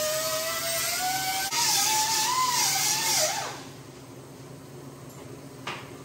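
TIG welding arc running with a wavering whine over a hiss, its pitch drifting up and down as the current is worked. Halfway through it gets louder, then falls in pitch and cuts off as the arc is shut down. A single sharp click follows near the end.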